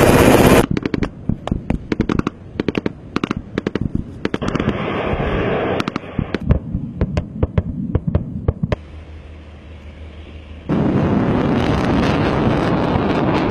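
Gunfire in rapid, irregular shots, dozens of sharp cracks over about eight seconds. It gives way to a low hum, then a loud steady rush of noise near the end.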